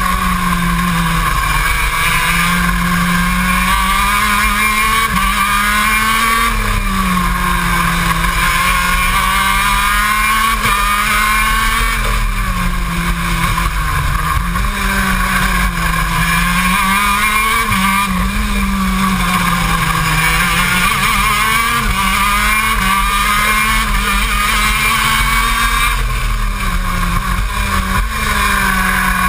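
KZ2 shifter kart's 125 cc two-stroke engine racing hard, heard loud up close, its revs climbing and dropping every few seconds through acceleration and braking for the corners.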